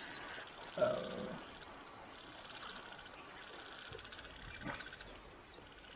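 Faint, steady high-pitched insect drone, with one short pitched call about a second in.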